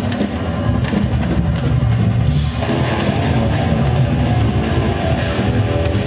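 Live rock music from a band on stage: a drum kit with cymbals and an electric guitar playing together.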